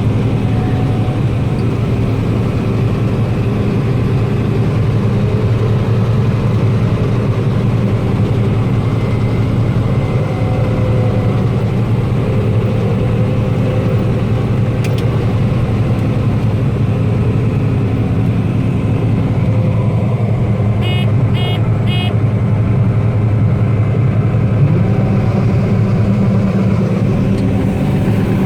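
Combine harvester's engine and machinery running steadily, heard from inside the cab. About three-quarters of the way through comes a short run of beeps, and near the end the engine's pitch rises.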